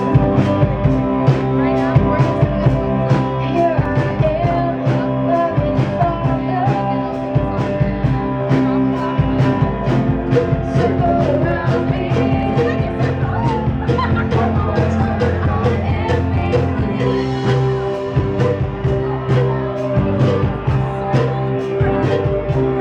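Rock and roll song with singing, with a cowbell struck along to the beat about twice a second.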